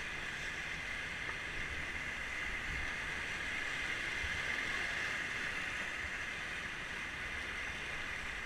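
Steady rush of river whitewater, an even hiss of moving water that holds level throughout.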